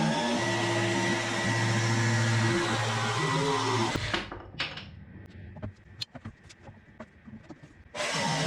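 Electric power tool motor running with a steady hum that cuts off suddenly about four seconds in, followed by scattered light clicks and knocks; the motor sound returns abruptly near the end.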